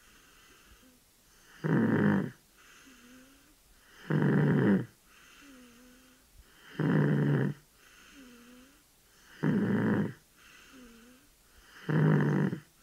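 Steady, rhythmic snoring: five loud rasping snores about two and a half seconds apart, each followed by a faint whistling sound that dips and rises in pitch.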